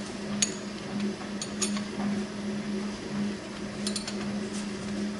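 A few sharp metal clicks and clinks as the levers and handles on a Bridgeport milling machine head are worked by hand, over a steady low hum that swells about once a second.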